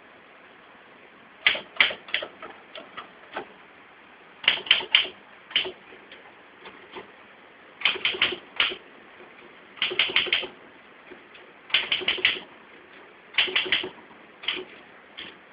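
Manual typewriter keys striking in quick clusters of three or four, with pauses of about a second between clusters, as a portrait is typed.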